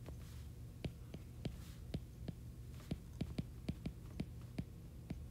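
A stylus tip tapping and clicking on a tablet's glass screen while handwriting, giving irregular light ticks about three or four a second. A low steady hum runs underneath.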